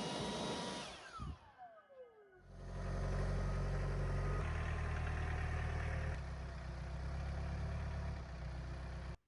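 Sawmill running, then its cutting noise dies away with a whine falling in pitch as the blade spins down. An engine then runs steadily at low speed and cuts off suddenly near the end.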